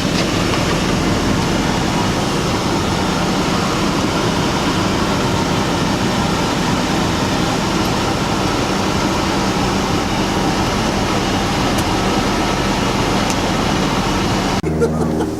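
Steady vehicle noise, a constant rumble of engine and road or wind with a faint low hum, which cuts off suddenly about a second before the end.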